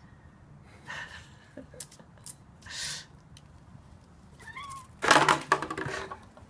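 Domestic cat hissing at a puppy as a defensive warning: short hisses about one and three seconds in, a brief wavering growl, then the loudest, a harsh hiss over a low yowl about five seconds in.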